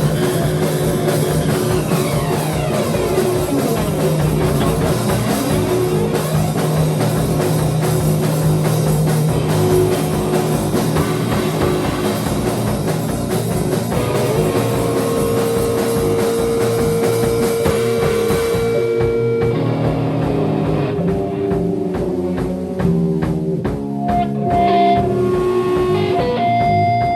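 Improvised instrumental rock played by a band: drum kit, electric guitar and bass. About two-thirds of the way through, the drums drop out and the guitar and bass go on alone with sustained notes.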